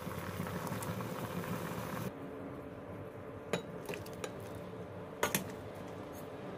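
A ladle clinking against the pot and a ceramic bowl as soup is served out: a few sharp clinks, one about three and a half seconds in and two close together about five seconds in. Soup simmers in the pot for the first two seconds.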